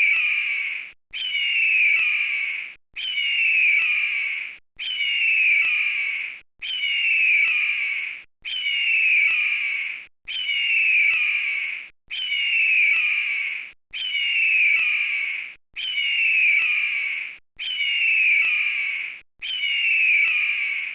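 Eagle calling: a high, shrill cry that falls in pitch, repeated the same way about every two seconds with brief silences between.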